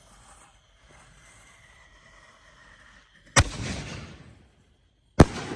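Ghostacular aerial firework shells going off: two sharp booms about two seconds apart, the first a little over three seconds in, each followed by a rumbling echo that fades over about a second.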